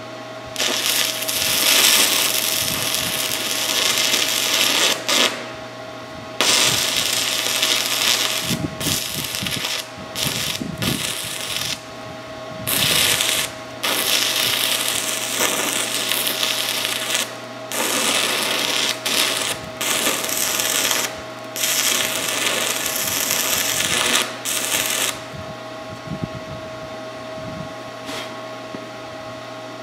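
Stick-welding arc from a Forney Easy Weld 110 stick welder crackling and hissing as it builds up worn steel shafts, in runs with several short breaks, stopping about 25 seconds in. A steady hum runs underneath.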